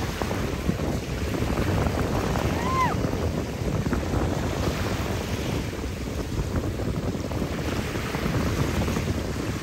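Small sea waves washing and lapping on a shallow sandy shore, with wind buffeting the microphone. A brief high, arching call sounds once about three seconds in.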